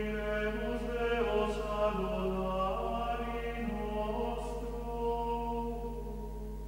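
Background music of voices chanting, holding long sustained notes that shift pitch now and then.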